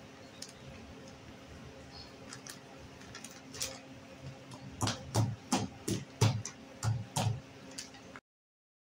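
A plastic bottle and a packet being handled on a kitchen counter while powder is poured into the bottle. A few light clicks come first, then about eight sharp knocks, each with a dull thump, over two or three seconds. The sound cuts off abruptly near the end.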